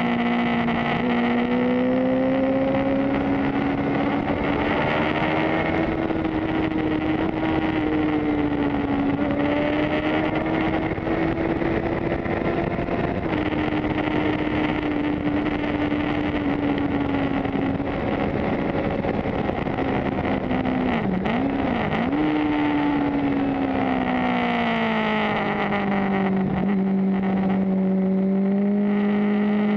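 Suzuki GSX-R750 inline-four engine heard from onboard at track speed, its note rising and falling with the throttle over steady wind rush. About two-thirds of the way through the pitch briefly dips and recovers twice, then falls and settles at a lower steady note near the end.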